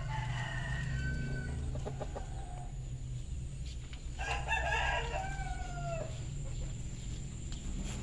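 Village rooster crowing twice: a shorter call right at the start, then a fuller crow about four seconds in that ends in a drawn-out falling note.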